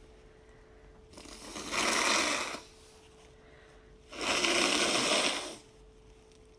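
A woman blowing a runny nose twice, each a long noisy blast of about a second and a half. The first builds up about a second in and the second starts abruptly about four seconds in. A faint steady tone runs underneath.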